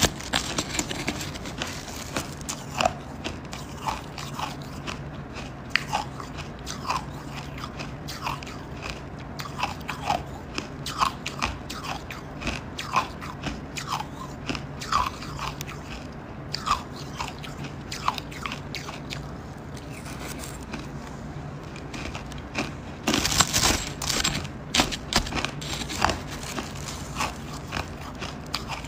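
Crunchy buckwheat ice chunks being bitten and chewed: a run of sharp cracks and crunches with short pinging snaps, most dense and loudest in a flurry near the end.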